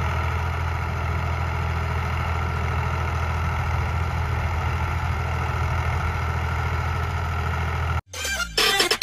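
Farm tractor's diesel engine running steadily at an even low pitch, which cuts off abruptly about eight seconds in as a short burst of music begins.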